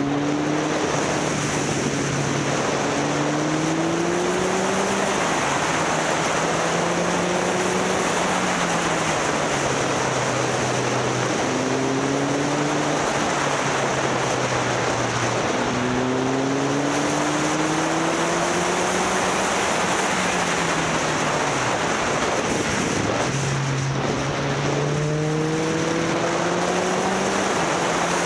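Motorcycle engine running under way, its note repeatedly climbing over several seconds and then dropping back with throttle and gear changes. Heavy wind rushes over the microphone throughout.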